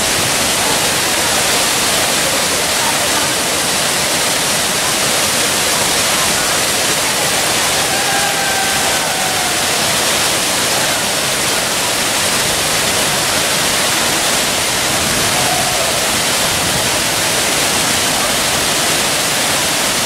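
Teerathgarh Falls on the Kanger River, a block-type waterfall dropping in a single plunge into its pool: a loud, steady rush of falling water with no break.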